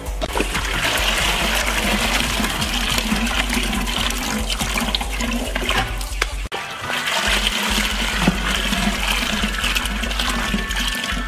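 A steady rush of water with splashing as mesh bags of seed are dropped into plastic buckets of water to soak. The sound breaks off briefly about two-thirds of the way through.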